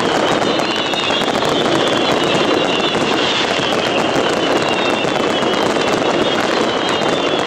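Fireworks barrage: many aerial shells bursting in quick succession, merging into a continuous rumble with a dense patter of crackling. A high, wavering whistle slowly falls in pitch over it, again and again.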